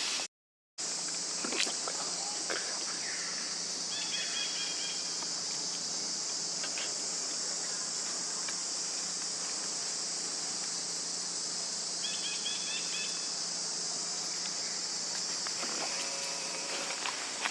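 Steady, high-pitched insect chorus of a forest. Short chirping trills come about four seconds in and again about twelve seconds in, with scattered light clicks.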